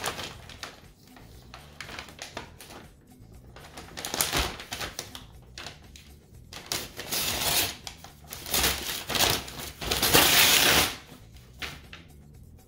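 A package being cut open with a small knife, its packaging crinkling and tearing in irregular bursts of rustling and clicking; the longest and loudest burst comes about ten seconds in.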